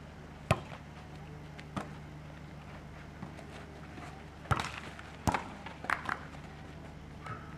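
A volleyball being struck: several sharp smacks at irregular intervals, the first the loudest, over a steady low hum.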